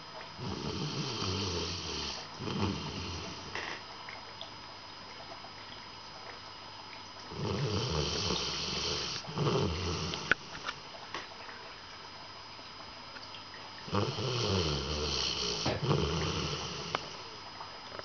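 Golden retriever snoring in its sleep: three slow, rough snoring breaths about seven seconds apart, each a longer snore followed by a shorter one, with quiet breathing between.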